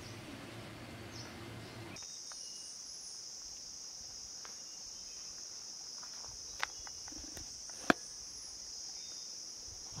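Insects drone steadily at a single high pitch, starting abruptly about two seconds in. Two sharp clicks come near the end, the second one louder.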